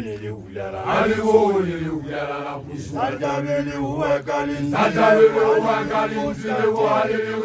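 Chanting by Basotho initiation graduates (makoloane): male voices in long, drawn-out pitched phrases that rise and fall, with short breaks between them.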